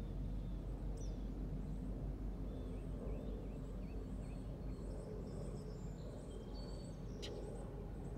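Outdoor ambience: a steady low rumble with faint bird chirps and whistles scattered through it, and one sharp click about seven seconds in.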